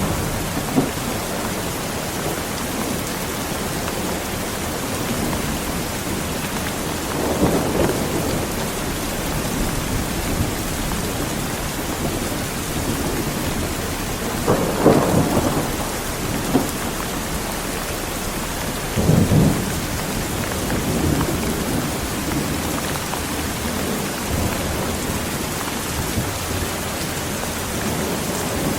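Heavy rain falling steadily, with rolls of thunder rumbling up out of it three times: about a quarter of the way in, near the middle, and again a few seconds later.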